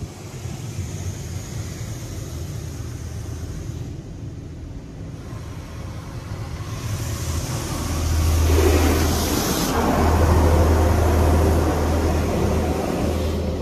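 PDQ LaserWash 360 PLUS touch-free car wash heard from inside the car: jets of water hissing and drumming on the roof and glass over a steady low hum, getting much louder about seven seconds in as the spray passes overhead.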